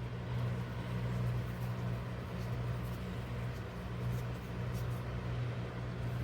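Steady low hum of the workshop's background noise, with a few faint light clicks from parts being handled.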